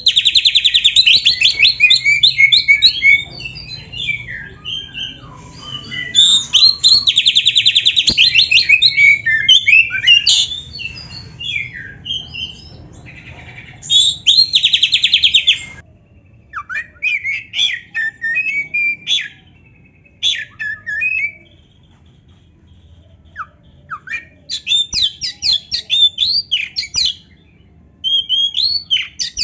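Oriental magpie-robin (kacer) singing loudly: long, fast rattling trills alternate with varied whistled notes. After about sixteen seconds the song turns into shorter, separate whistled and chirping phrases with brief pauses between them.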